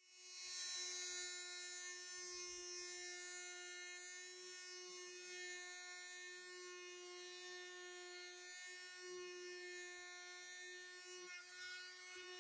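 Small electric power sander running with a steady buzz, sanding the wooden planked hull of a model ship.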